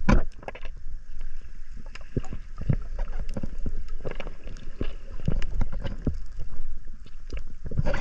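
Muffled underwater noise heard through a submerged camera housing: a low rumble of water with irregular clicks and knocks, several a second.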